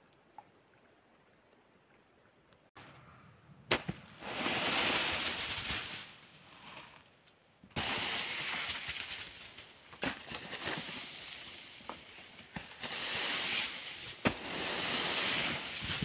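A wooden stick knocking on snow on a tarp-covered hut roof, with sharp knocks, and wet spring snow sliding off the roof in hissing rushes of about two seconds, three times. The first seconds are nearly quiet.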